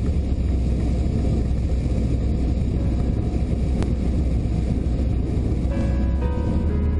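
Bushby Mustang II light aircraft's piston engine and propeller droning steadily in cruise flight, heard inside the cockpit with wind noise. Music fades in near the end.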